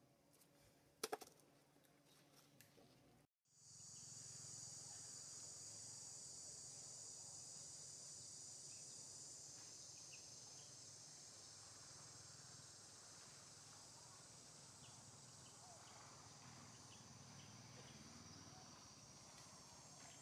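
Faint steady chorus of insects, a continuous high-pitched buzzing that sets in after an abrupt cut about three seconds in. Before it there is near silence, with a single sharp click about a second in.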